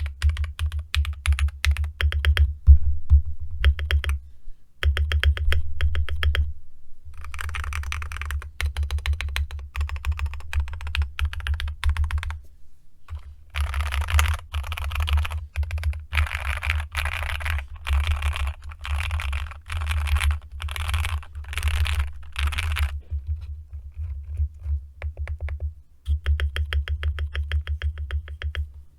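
Custom Akko MOD007 mechanical keyboard with lubed JWK Black linear switches, a foam-filled case, tape mod and ASA keycaps, typed on fast in runs of rapid keystrokes with short pauses, and a longer pause of a few seconds near the end.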